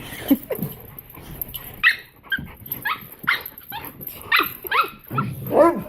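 Miniature pinscher puppy barking in short, high yips and whines, about a dozen in quick succession; the owner takes it that she doesn't like the bigger dog playing with her.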